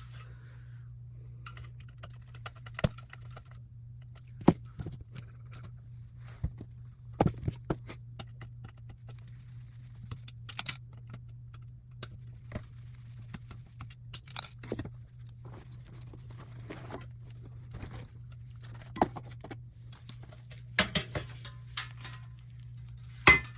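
Metal hand tools clinking and rattling as they are picked up and sorted through, in scattered sharp clicks with several small clusters, over a steady low hum.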